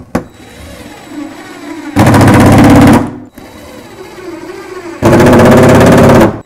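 Cordless impact driver hammering screws through foam tile backer board into wood studs: two bursts of rapid hammering, about a second and a second and a half long, the second starting about five seconds in.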